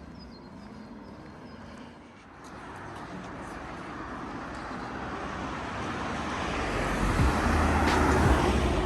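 A car approaching along a wet road, its tyre hiss and engine noise swelling steadily and peaking near the end as it passes close by.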